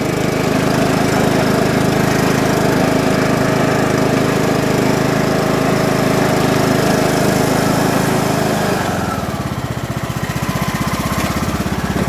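John Deere LA115 riding mower engine running steadily at speed, then about nine seconds in dropping to a lower, pulsing idle. It starts and runs on a newly fitted ignition switch, the fault fixed.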